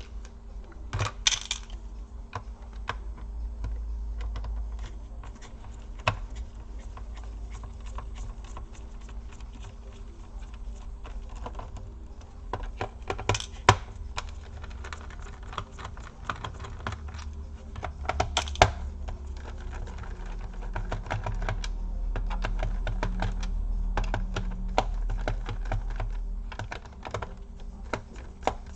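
Irregular small clicks and ticks of a small screwdriver backing screws out of a laptop's plastic bottom case. A few louder clacks come about a second in, about 13 seconds in and about 18 seconds in.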